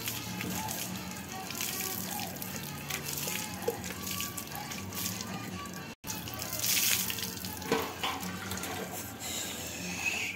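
Water splashing and running over a dog being washed down, with music playing underneath. The sound drops out for an instant about six seconds in.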